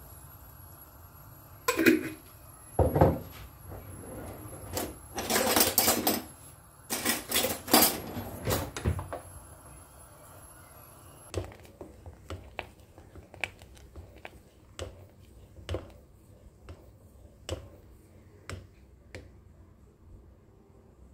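Dried herbs shaken and tapped out of a glass jar into an enamel pot, with several sharp clinks and rattles. Then a wooden spoon knocks lightly against the enamel pot about once a second while the liquid is stirred.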